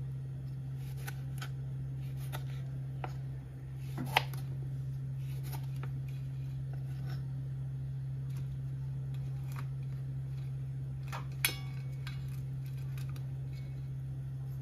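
Kitchen knife knocking on a wooden cutting board while slicing tomato and lime: scattered short taps, two of them much louder, about four seconds in and past the two-thirds mark. A steady low hum runs underneath.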